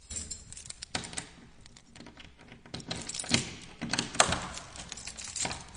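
Irregular clicking and clattering of small hard objects, starting abruptly out of silence, with uneven spacing and one sharp, louder click about four seconds in.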